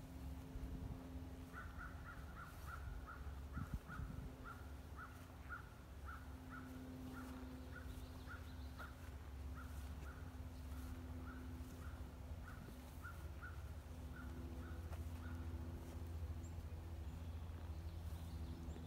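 A bird calls a long, even series of short notes, about two a second, starting soon after the start and stopping a few seconds before the end. A steady low hum runs underneath.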